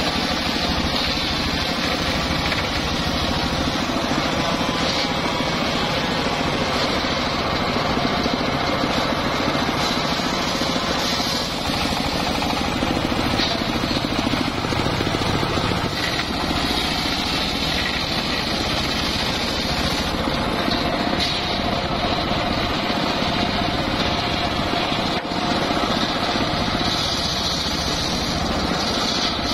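Large circular blade of a homemade saw bench ripping lengthwise through a teak log, running steadily under load for the whole stretch.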